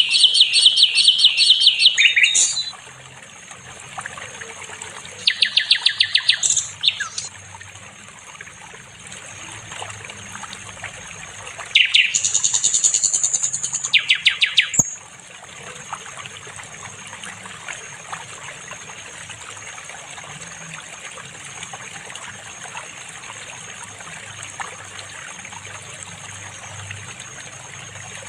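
Sikatan londo singing: three bursts of rapid, evenly repeated high notes, at the start, around five seconds in, and from about twelve to fifteen seconds, over a steady background hiss like trickling water.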